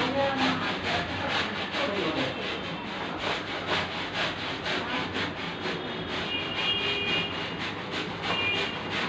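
Brush scrubbing sofa upholstery in quick back-and-forth strokes, a few per second, steady throughout.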